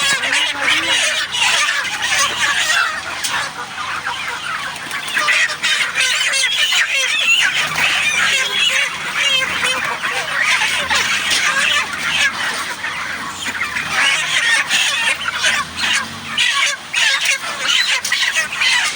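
A large flock of 35-day-old chickens chirping and clucking, many birds calling over one another in a dense, steady chatter.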